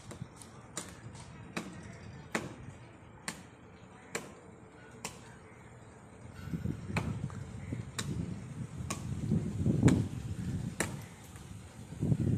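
Chopping strokes on wood heard from a distance as sharp, even knocks, roughly one a second, about a dozen in all with a short pause midway. A low rumble joins from about six seconds in.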